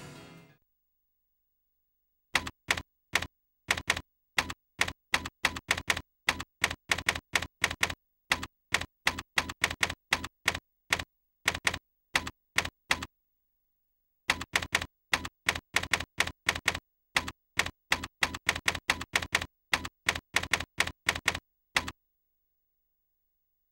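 Typewriter sound effect: a long run of separate key-strike clicks, about three a second, with a pause of about a second midway, accompanying on-screen text being typed out. The tail of a music sting fades out just at the start.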